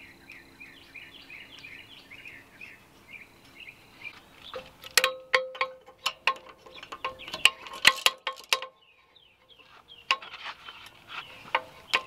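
Irregular metallic clicks and clinks with a short ring, from a socket wrench and extension on the exhaust-manifold nuts of a Kubota D1503-E diesel engine, starting about four seconds in, with a brief pause a little after the middle.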